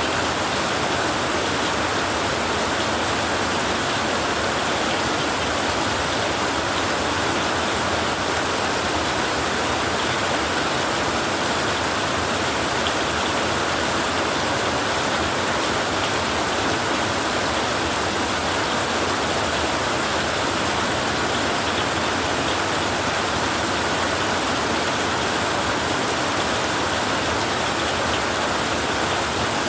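Heavy rain drumming on a tin roof, a dense, steady hiss of drops with no let-up.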